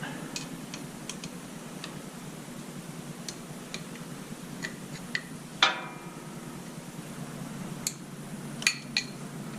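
Oil drain plug being put back on the mower engine's drain tube: scattered light metallic clicks and taps, with one louder metal clank that rings briefly a little past halfway.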